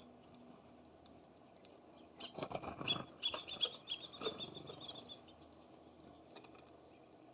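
Small songbirds at a seed feeder: a flurry of scratching and tapping, then a quick string of high chirps lasting about two seconds.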